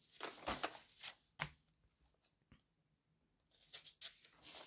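Glossy magazine pages turned by hand: soft paper rustling in a few short bursts during the first second and a half, then again near the end.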